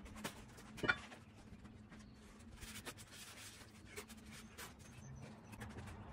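Faint handling noise: light rubbing and scratching, like a paper towel wiping a metal hub, with scattered small clicks and one louder knock about a second in.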